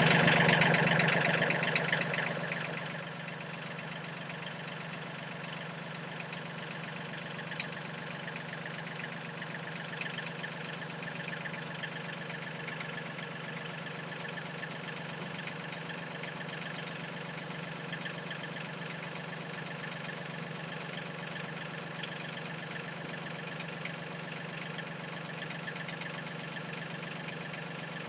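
Yanmar tractor's diesel engine running, louder for the first couple of seconds, then dropping to a steady drone.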